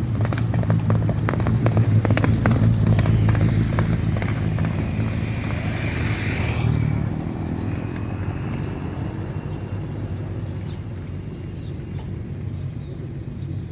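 A motor engine running steadily with a low hum, with a brief rush of noise about six seconds in.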